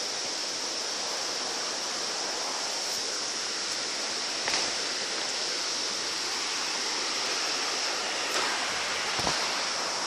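River water rushing steadily over rocks into a pool, with a few faint knocks partway through and near the end.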